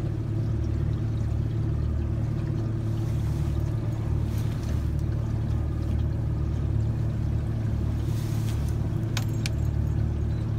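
A small boat's outboard motor running steadily at an even pitch. A couple of light clicks come near the end.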